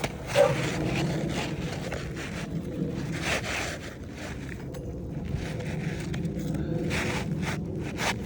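Several separate scrapes and rustles of asphalt shingles being handled and slid on a shingle roof, over a steady low hum.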